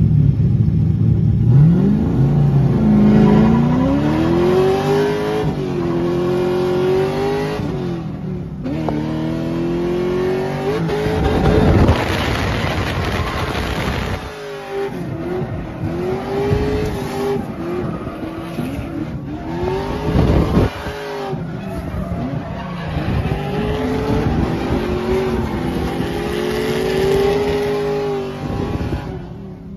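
LS-swapped Lexus IS300 drift car's LM7 V8 revving hard through a drift run. The engine note climbs and falls again and again, dipping briefly about eight and fourteen seconds in, with tyre squeal and skidding.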